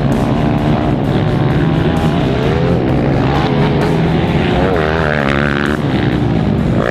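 Motocross dirt bike engines revving up and down as the bikes ride the track, over background music with a steady beat.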